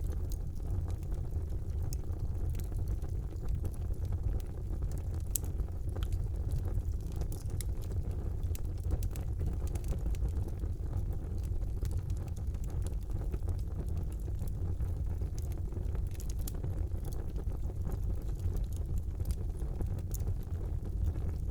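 Wood fire burning in a fireplace: a low, steady rumble of the flames with scattered small crackles and pops from the burning logs.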